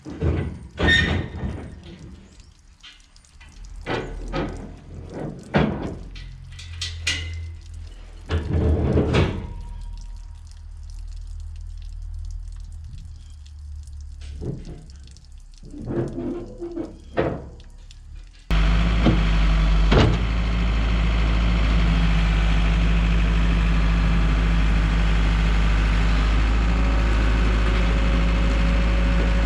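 A run of irregular knocks and thunks over a low steady hum. About two-thirds of the way in, an abrupt change to a loud, steady drone that holds to the end.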